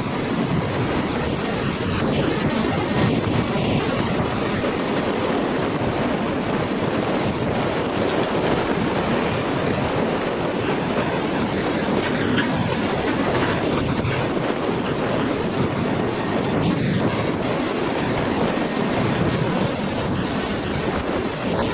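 Hydraulic log grapple crane at work, swinging its grapple over a load of pulpwood logs: a steady, dense machine noise with no distinct knocks.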